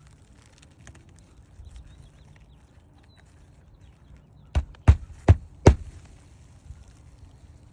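Four sharp knocks in quick succession, a little under half a second apart, a little past the middle.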